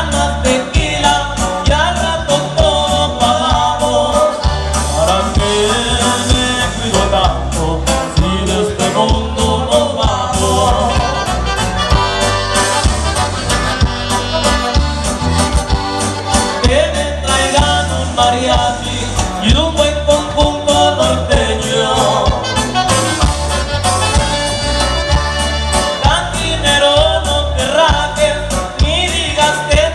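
Live norteño band music played loud through the PA: accordion and saxophone over a bass line and a steady beat, with a singer.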